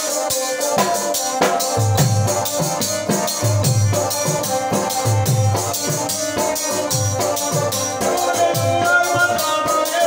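Music with a steady low drum beat, a fast shaker-like rhythm in the highs and sustained melodic tones.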